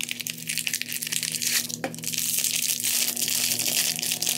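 Cardboard blind box being torn open and the foil pouch inside crinkled and crushed in the hands: a dense, continuous crackling rustle.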